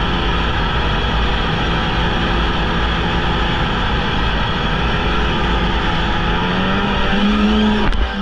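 Polaris Indy snowmobile engine running under way, steady, then rising in pitch as it accelerates near the end before the sound breaks off abruptly.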